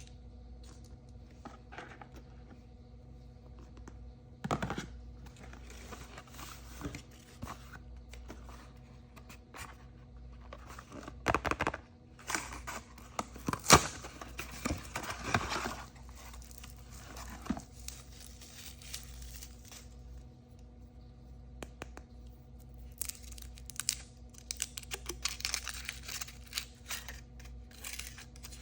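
Surprise-toy packaging being torn open and crinkled by hand, in irregular rustling bursts with a sharp click about halfway through.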